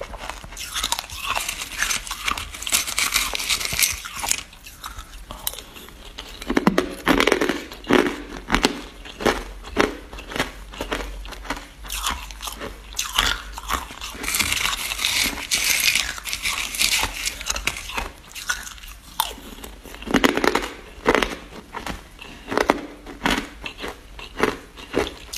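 A person biting and chewing hard, clear ice, close to the microphone: a dense run of sharp cracks and crunches as the chunks break between the teeth.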